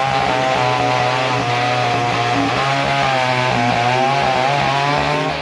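Yellow McCulloch two-stroke chainsaw cutting through a log round, its engine under load with the pitch wavering up and down.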